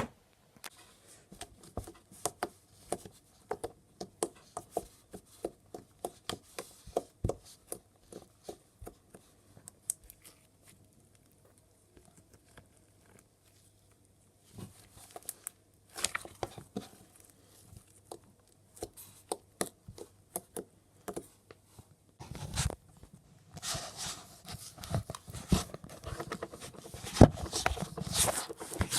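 Slime being squished and pulled by hand, making irregular sticky clicks and crackles, with a few seconds' pause in the middle and denser, louder crackling near the end.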